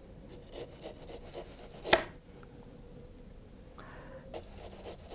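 Sharp knife sawing thin slices off a frozen beef tenderloin on a plastic cutting board, in short rasping strokes, with one sharp knock just before two seconds in.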